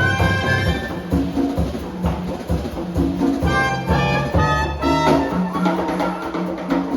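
Live Latin jazz band playing: a brass melody line over hand percussion, drum kit and bass.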